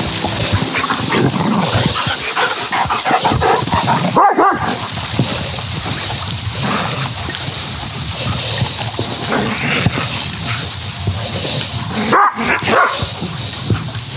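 Two dogs, a German shepherd and a black shepherd-type dog, barking and yipping in short repeated calls while chasing each other in play.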